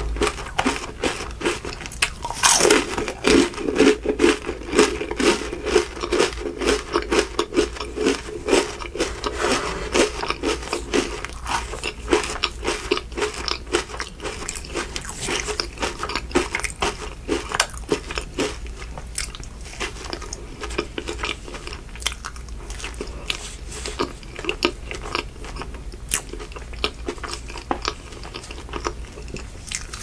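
Crunching bites into the tip of a waffle ice cream cone, loudest about two and a half seconds in, then steady crackly chewing of the cone and ice cream; near the end, a bite into a soft Oreo ice cream sandwich.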